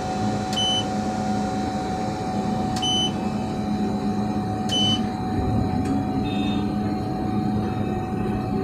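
Steady machine hum inside a Zoomlion tower crane's operator cab, with three short high electronic beeps about two seconds apart and a fainter two-note chirp a little later.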